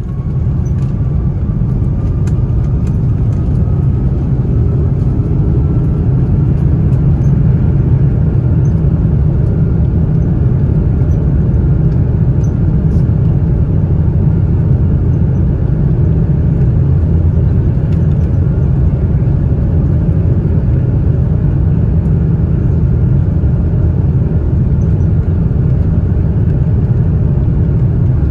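Airbus A330 jet engines at takeoff power, heard inside the cabin over the wing: a loud, steady rumble with a faint whine that rises in pitch over the first several seconds, as the airliner accelerates for takeoff.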